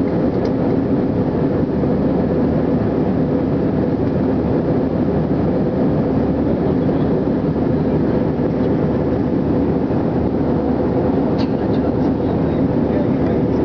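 Steady cabin noise of an airliner in cruise, heard from a window seat: jet engines and airflow making a constant low drone with a faint hum, and a few faint ticks near the end.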